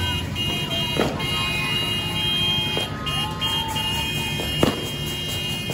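Fireworks going off: three sharp bangs about a second, three seconds and nearly five seconds in, the last the loudest. Under them runs a continuous din with steady high-pitched tones.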